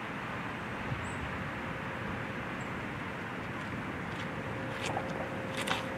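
Steady outdoor background noise, an even hiss, with a few faint clicks or taps in the last two seconds and a faint steady hum joining about four seconds in.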